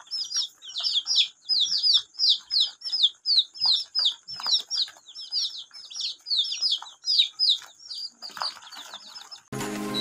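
A group of ducklings and chicks peeping nonstop: a rapid stream of high, downward-sliding calls, about three or four a second, often overlapping. Music cuts in just before the end.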